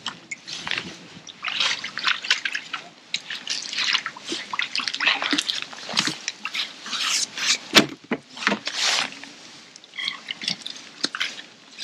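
Water splashing and dripping in short, irregular bursts, mixed with sharp clicks.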